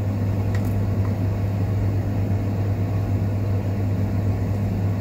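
Steady low fan hum with a faint click about half a second in.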